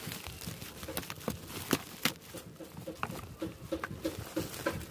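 Plastic bubble-wrap packaging crinkling and crackling with sharp clicks as hands open it. From about three seconds in, a quick run of short pitched notes repeats about four times a second.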